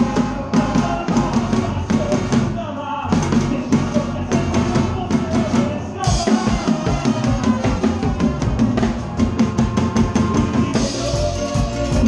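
Live band playing an up-tempo dance number, with the drum kit and percussion loud in front. The drumming gets busier about halfway through.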